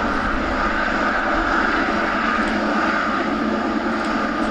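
Boeing 777 freighter's twin turbofan engines running: a steady rumble with a high whine over it.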